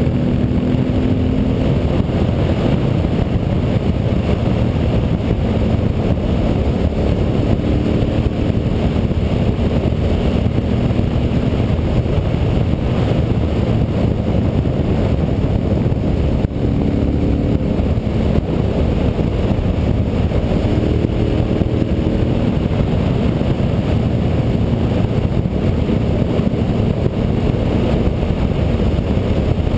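Honda Varadero 1000's carbureted V-twin engine running while under way on the road, with a heavy rush of wind on the on-board microphone. The engine note drifts up and down a little now and then.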